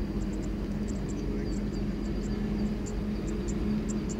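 Distant steady rumble of a Boeing 747-400F freighter's jet engines as it rolls out along the runway after landing, with a low hum held throughout. Faint high chirps repeat a few times a second over it.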